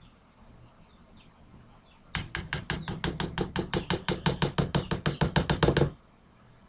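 A spoon knocking rapidly and evenly against a container, about eight strokes a second for almost four seconds, starting about two seconds in.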